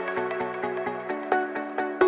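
Electronic background music with a steady beat and bright melodic notes.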